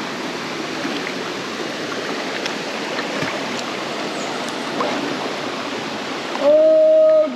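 Steady rushing of a river stream and cascade, with light splashing from a swimmer paddling through the shallow pool. Near the end the water noise cuts off and a loud, steady pitched tone bends up slightly at its start and holds for under a second.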